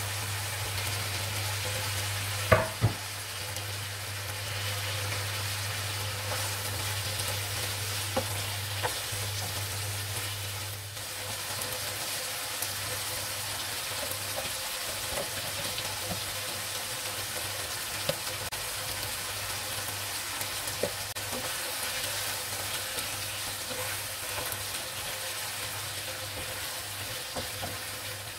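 Chicken and vegetables sizzling as they fry in a pan, stirred with a wooden spatula that knocks against the pan now and then, over a steady low hum. Two sharp knocks about two and a half seconds in are the loudest sounds.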